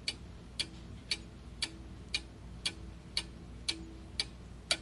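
Countdown-timer clock-tick sound effect: about ten evenly spaced ticks, roughly two a second, over a faint low hum, stopping suddenly at the end of the count.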